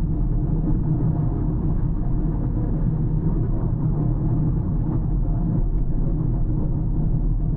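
A car driving at a steady pace: an even, low rumble of engine and tyres on the road, with no change in speed.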